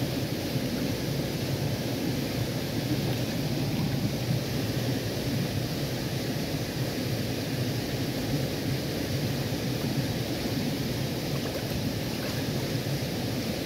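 Shallow stream water rushing steadily over a bed of pebbles.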